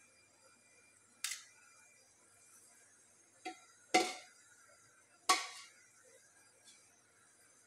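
Metal dishes and utensils clanking on stainless steel: four sharp knocks, each with a short ring, the two loudest about four and five seconds in.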